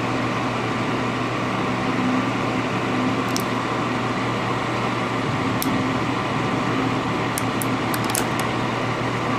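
Hot air rework station blowing steadily through its nozzle onto a metal shield frame to melt the solder beneath it. The blower's fan gives a steady hum. A few small clicks come in the second half.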